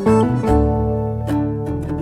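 Background music led by plucked acoustic guitar, with notes and chords changing every half second or so.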